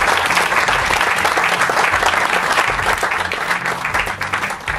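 An audience applauding, a dense spell of clapping that tapers off near the end.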